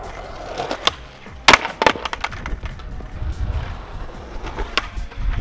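Skateboard rolling on a concrete bank, with several sharp clacks of the board and wheels against the concrete, the loudest about a second and a half in, over a low rumble.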